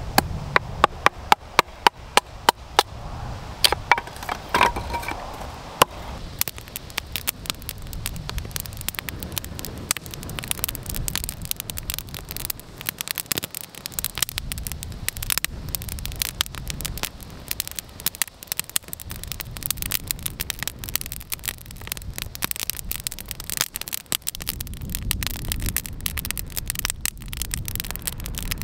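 Small campfire of split pallet wood crackling and popping, a dense run of sharp snaps over a low rumble; the loudest snaps come in the first few seconds.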